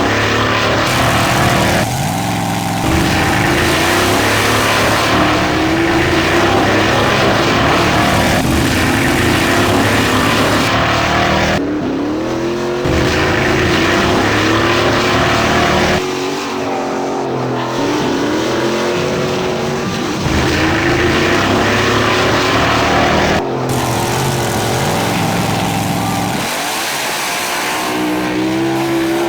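Dubbed-in car engine sound effects, revving up and easing off over and over like a car being driven hard through its gears. The sound changes abruptly every few seconds where separate clips are spliced together.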